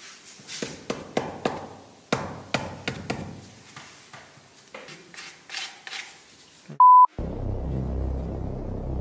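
Irregular knocks and scrapes of a small gypsum 3D-panel piece being pressed and fitted into a joint by gloved hands. About seven seconds in comes a short, loud beep tone, followed by background music with a throbbing bass.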